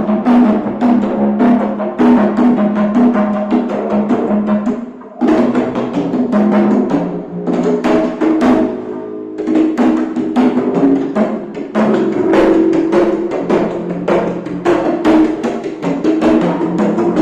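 Congas and a djembe played by hand in a fast, busy free-jazz pattern over a bass holding long low notes, with a short pause in the drumming about five seconds in.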